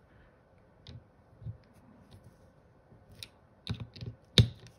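Torque screwdriver being fitted to the small steel screws of a pistol's red-dot optic plate: a few scattered clicks and light metal taps, the sharpest about four seconds in.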